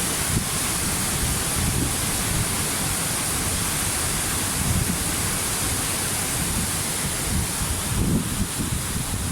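Waterfall: a steady rush of falling water with an uneven low rumble underneath.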